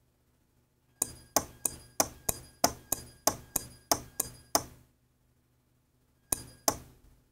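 Relay modules clicking as they switch the light strands: a run of about twelve sharp clicks with a short metallic ring, about three a second, then a pause and two more clicks near the end.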